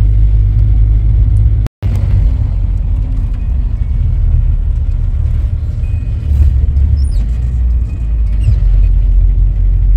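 Steady low road rumble of a moving vehicle heard from inside its cabin, with a brief dropout about two seconds in.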